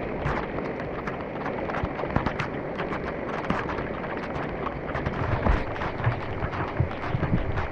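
Heavy rain falling, with dense irregular drops striking leaves and nearby surfaces, and low thumps in the second half from wind or drops on the microphone.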